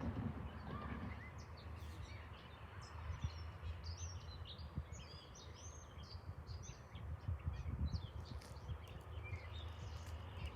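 Birds chirping and calling over the low, steady rumble of a distant diesel freight locomotive's engine working as the train approaches.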